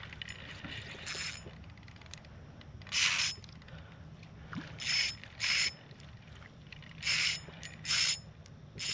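Spinning reel's drag giving line in about seven short buzzes as a hooked red drum pulls; the drag is set too loose.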